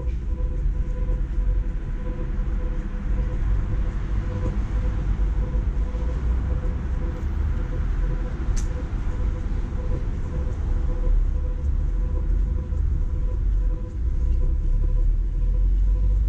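Steady low rumble of city street traffic, with a faint steady whine running under it and a single sharp click about eight and a half seconds in.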